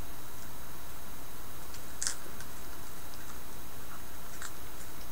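A raccoon eating pizza: scattered small clicks and ticks over a steady hiss, with one sharper click about two seconds in and another about four and a half seconds in.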